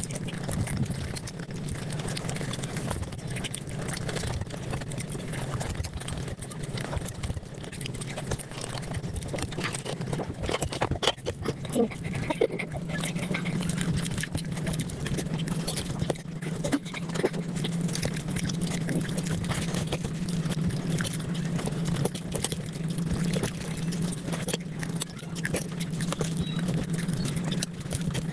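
Close-miked eating sounds sped up to five times normal speed: chewing, smacking and mouth clicks run together into a dense, rapid crackle over a steady low hum.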